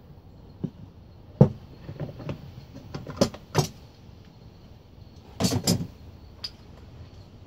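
Wooden lid being set and shifted on a cedar box: a string of irregular wood-on-wood knocks and clunks, the loudest about one and a half seconds in and a quick cluster of several about five and a half seconds in.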